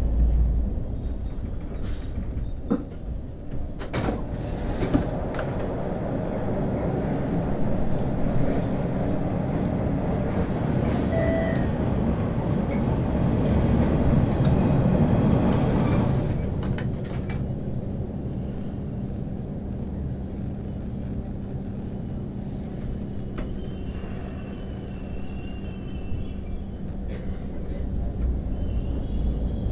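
MBTA Orange Line Hawker Siddeley 01200-series subway car running, a deep rumble with a few sharp clicks in the first seconds. The noise builds, then drops away sharply about halfway through, leaving a steadier hum with one constant tone.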